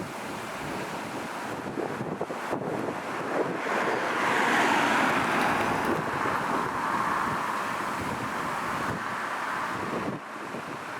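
Concrete mixer truck running with its drum spinning: a steady rushing noise that swells about four seconds in and eases near the end, with wind buffeting the microphone.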